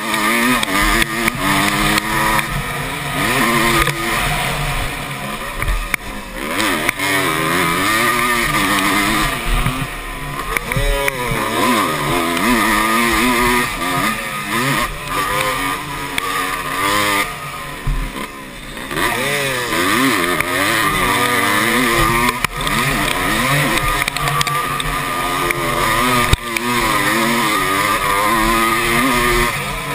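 Motocross dirt bike engine heard close up from a camera mounted on the bike, revving hard and dropping back again and again as the rider accelerates, shifts and rolls off through the turns and jumps of a race.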